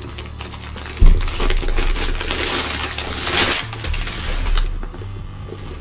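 A thump about a second in, then rustling of plastic wrapping and packing paper with light metallic clinking, as a chain shoulder strap is lifted out of a cardboard box.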